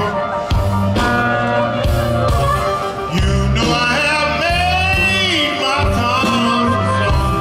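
Live electric blues band playing, with a singer over electric guitar and a steady bass line.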